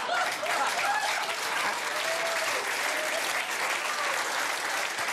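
Studio audience clapping and laughing together, the laughter most audible in the first couple of seconds.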